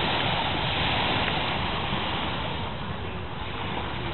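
Small waves breaking and washing up on a sandy beach, a steady hiss of surf that is loudest in the first couple of seconds and then eases, with wind rumbling on the microphone.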